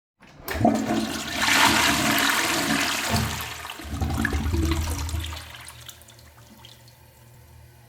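Toilet flushing close up: a loud rush of water starts about half a second in, surges again around four seconds, then fades away after about five and a half seconds.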